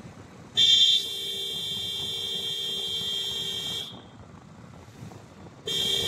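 Vehicle horn honked twice: a long steady blast of about three seconds, then a shorter one near the end.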